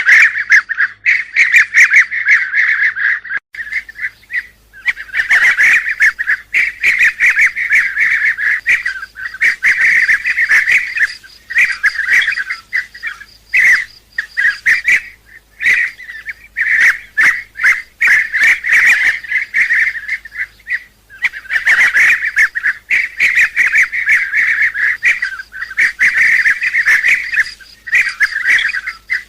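A flock of bee-eaters calling: many rolling, trilled calls overlapping almost without a break, broken now and then by short gaps.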